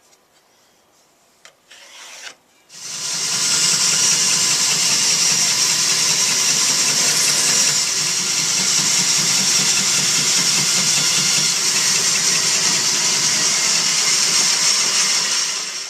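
Electric woodworking machine running steadily on wood, working a board to a marked pencil line, starting about three seconds in after a few light knocks and stopping just before the end.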